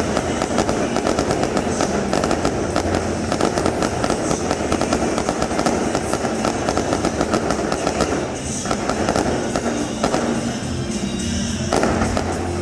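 Aerial fireworks crackling and popping in a rapid, continuous barrage, with music playing alongside; the crackle thins briefly twice, around two-thirds of the way through and near the end.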